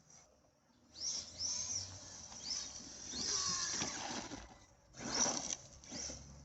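Arrma Big Rock 6S electric RC monster truck's brushless motor whining in short throttle bursts, its pitch rising and falling with each burst. The loudest, rougher burst comes about five seconds in.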